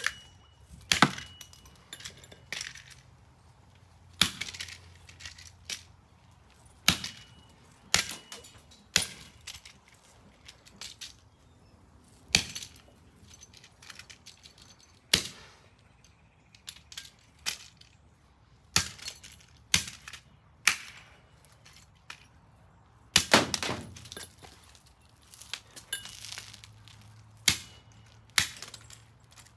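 Repeated axe blows smashing a Pass & Seymour GFCI receptacle: sharp cracking impacts with clinks of breaking plastic and metal, a strike every second or two.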